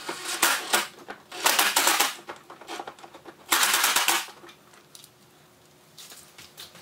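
Cordless drill/driver running in three short bursts, driving dash bolts into plastic, with a rapid clicking texture.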